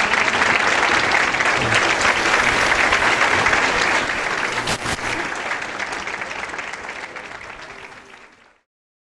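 Audience applauding at the close of a talk, a dense even clapping that dies away over the last few seconds and fades out just before the end.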